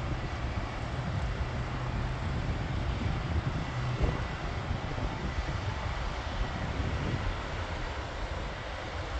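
Twin-engine propeller airplane's engines running on the runway before takeoff: a steady drone with a low hum that eases about four seconds in.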